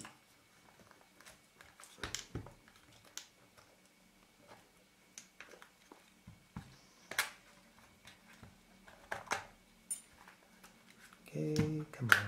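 Scattered light clicks and taps at irregular intervals from hands and a small tool working on a Canon EOS 450D camera's plastic body, loosening a piece of adhesive.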